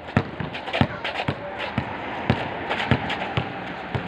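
Basketball dribbled on a hard outdoor concrete court: steady bounces about two a second, each a sharp slap.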